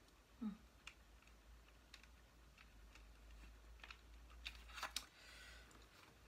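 Faint, scattered clicks of buttons being pressed and plastic handled on a Fujifilm Instax Wide 300 instant camera that has no batteries in it yet, so no motor runs. A short low hum from a voice about half a second in, and a brief rustle near five seconds.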